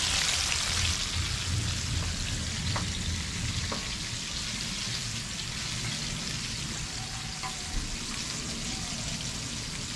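Battered butterfish fillets sizzling steadily as they fry in oil in a frying pan over medium heat. The sizzle is a little louder at the start and then settles, with a few faint light clicks.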